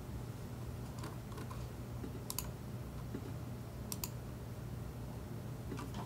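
A few scattered clicks from a computer keyboard and mouse, some in quick pairs, over a steady low hum.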